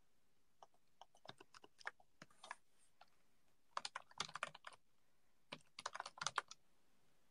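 Faint computer keyboard typing: quick runs of keystrokes in three short bursts, about a second in, about four seconds in and about six seconds in.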